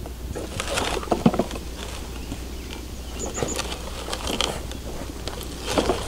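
Scattered plastic knocks and clatter from a ride-on toy backhoe digger's arm and bucket being worked in sand, loudest about a second in, over a steady low rumble.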